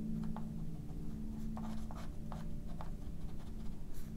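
Benu Talisman fountain pen's fine nib scratching across notebook paper in short, uneven back-and-forth strokes while shading in an ink swatch.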